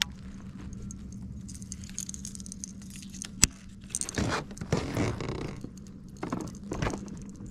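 Handling noise of a baitcasting rod and reel and fishing tackle: scattered scrapes, rattles and knocks, with one sharp click about three and a half seconds in, over a steady low hum.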